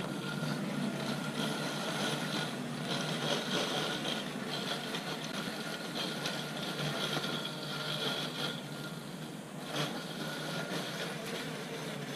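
Exgain E1800 robotic lawn mower running, its electric motor giving a faint, steady whine over outdoor noise.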